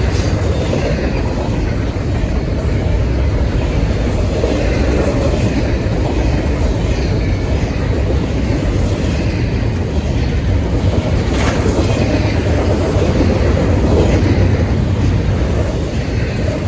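Long intermodal freight train's cars rolling past at speed: a steady, loud rumble of steel wheels on rail, with a few faint clicks.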